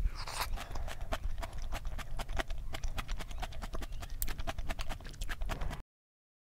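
Close-miked eating sounds: rapid sharp clicks of chewing and a spoon against a metal bowl, several a second, over a steady low rumble that the eater puts down to nearby construction. The sound cuts off abruptly near the end.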